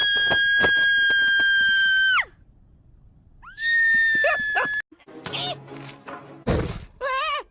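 A cartoon character's high-pitched scream, held steady for about two seconds and falling away at the end, then a second shorter scream that cuts off suddenly. After it come squeaky, wavering vocal noises and a brief crash.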